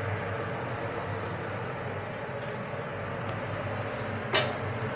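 Steady hum of commercial kitchen ventilation, with a short clatter of cookware about four and a half seconds in.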